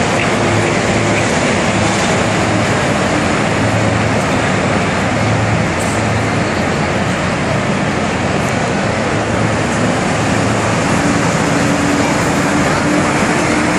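Farm tractor engines running steadily as they drag and pack the dirt floor, a low engine hum under a loud, even rushing noise.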